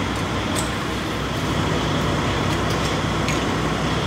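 Steady low mechanical rumble with a constant hum, joined by a few light, sharp metallic clicks.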